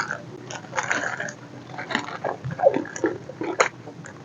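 Close-miked mouth sounds of eating: wet chewing and lip smacks with irregular clicks, and a short sliding squelch about halfway through.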